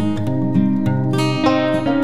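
Background music led by a plucked acoustic guitar, playing a run of notes.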